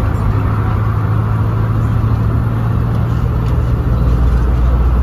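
Bus engine pulling hard at full throttle: a steady low engine drone holding its pitch, over road and tyre noise, heard from on board.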